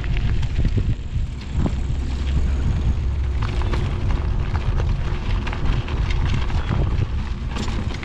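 Wind buffeting the microphone of a mountain bike rolling fast down a loose gravel track, with the tyres crunching over stones and many small clicks and rattles.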